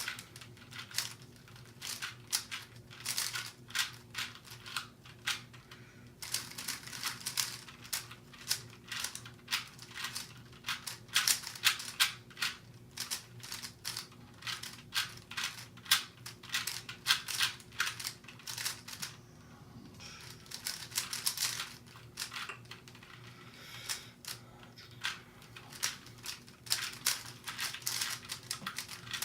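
Plastic speed cubes being turned fast: rapid runs of clicking and rattling layer turns, with short pauses between runs while the solvers look at the cube.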